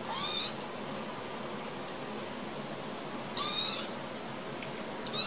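Kittens mewing: three short, high-pitched mews, one at the start, one past the middle and one at the end.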